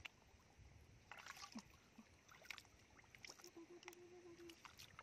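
Faint splashing and sloshing of hands and feet moving in shallow muddy water, in scattered small splashes and clicks, with a faint steady held note for about a second near the end.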